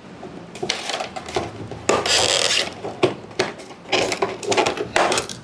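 Packaging being handled and opened by hand: irregular rubbing and scraping with small knocks, and a longer scrape about two seconds in.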